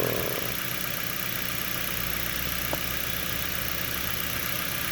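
Electric radiator cooling fan running steadily, a continuous whir and hiss with a low hum, and one light click near the middle.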